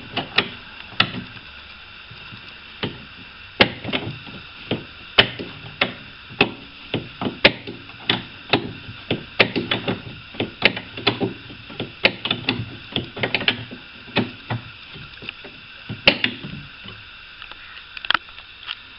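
Irregular sharp metallic clicks and knocks, roughly one or two a second: a spanner working a bolt inside a car door.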